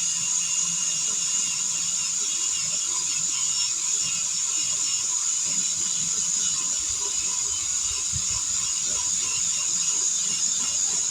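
Small air compressor running steadily, inflating a car tire after a puncture repair.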